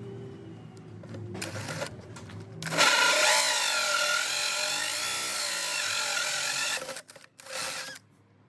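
Power drill driving a hole saw into wood: the drill runs hard for about four seconds, its pitch wavering under the load, then gives one short further burst near the end.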